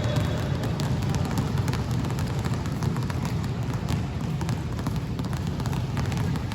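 Basketballs being dribbled, many short bounces one after another, over a steady low rumble.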